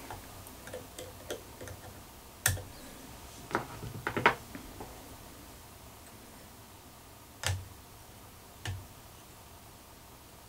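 A few scattered light clicks and taps, about six, spread irregularly with gaps of a second or more, the sound of fly-tying tools being handled at the vise.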